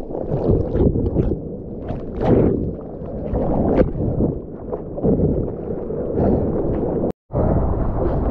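Seawater sloshing and splashing around a mouth-mounted GoPro at the waterline as a bodyboarder moves through foamy whitewash. It comes in uneven surges with occasional sharper splashes, and the sound drops out completely for a split second near the end.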